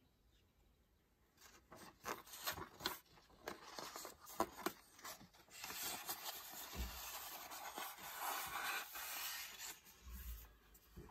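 Paper crackling and rustling as a folded map in a paperback book is folded shut. This is followed by a longer steady rubbing of paper and card as the book is closed and slid in among other books on a wooden shelf, with a couple of soft bumps.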